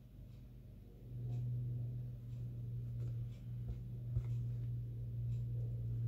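A steady low hum that swells about a second in and holds, with a few faint soft ticks as a needle and thread are worked through layers of fabric in hand embroidery.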